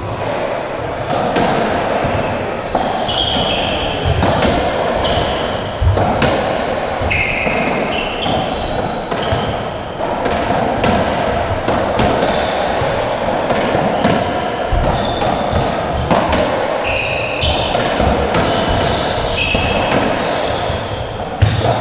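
Racketball rally on a squash court: the ball is struck again and again, cracking off rackets and walls, with short high squeaks of the players' shoes on the wooden floor between the hits.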